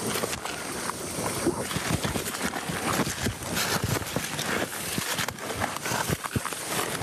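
Footsteps crunching and rustling through dry grass and brush, an irregular run of crackles and scuffs.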